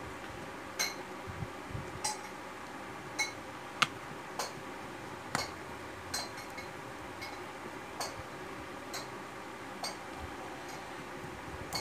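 A dozen or so light, sharp clicks and ticks at uneven intervals: a small precision screwdriver and tiny screws tapping against a smartphone's plastic midframe and the repair mat as the screws are picked up and refitted.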